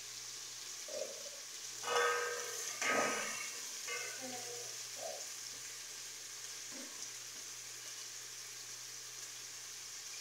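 Food cooking in a steel pot on a gas stove, giving a steady sizzling hiss. A few short knocks and handling sounds come over the first half.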